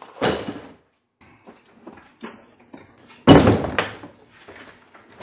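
A cardboard box is tossed onto a table and lands with a thud. A few light knocks follow. About three seconds in, a Kobalt hard plastic tool case is set down heavily on the table: the loudest knock, followed by a smaller one.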